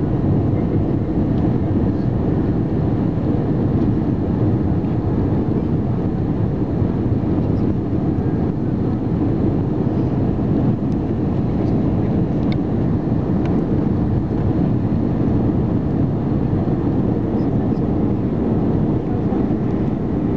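Steady cabin noise inside an Airbus A319 airliner descending on approach: the underwing jet engine and rushing air heard from a window seat beside the wing, an even low rumble.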